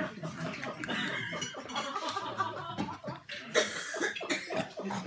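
Dinner guests chuckling and murmuring in reaction to a punchline, with a short louder burst about three and a half seconds in.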